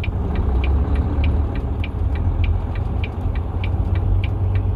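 Volvo semi-truck's diesel engine running low and steady, heard from the cab, with a light regular ticking about three times a second over it.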